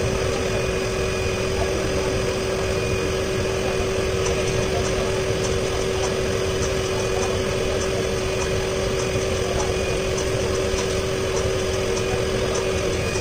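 Jeanologia Nano denim laser machine running while it engraves a design into jeans: a steady machine hum with one constant tone, and faint irregular ticking on top.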